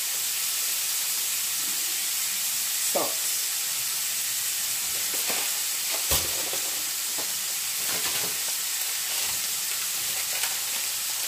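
Diced pancetta sizzling in olive oil in a frying pan: a steady hiss with an occasional sharp pop.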